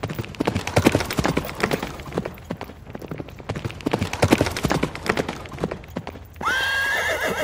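Footsteps on grass: soft thuds in a steady walking rhythm. About six seconds in, a loud, high, held tone with a slight wobble cuts in.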